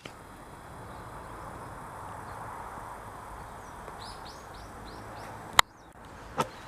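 Bird chirps over a steady hiss, with a quick run of about six chirps about four seconds in. A sharp click comes a second later, after which the hiss drops out.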